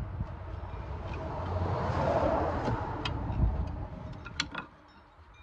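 Handling noise from hands working around a car's suspension strut: a rustling swell about two seconds in, with a few light clicks around three seconds and four and a half seconds in.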